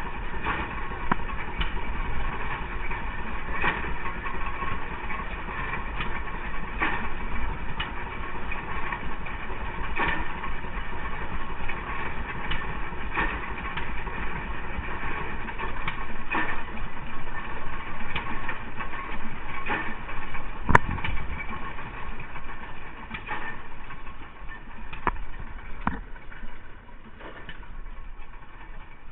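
A farm engine running steadily, with a sharp beat about every second or so. About two-thirds of the way through, one sharp crack is the loudest sound.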